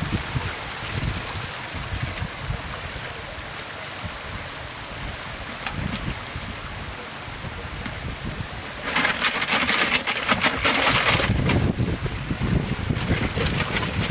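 Low wind rumble on the microphone over trickling water, then about nine seconds in a loud spell of splashing and thrashing as fish are tipped from a wicker basket into a basin of water, with more splashing near the end.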